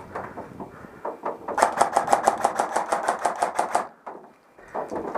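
An airsoft gun firing a rapid string of about seventeen shots, roughly eight a second, starting about a second and a half in and stopping about two seconds later. Lighter irregular clicks and rustling come before and after it.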